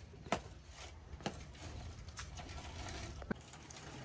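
Reed canes of a hanging reed blind knocking together in three light, sharp clicks while the blind is handled and tied up with rope. A faint low hum runs underneath.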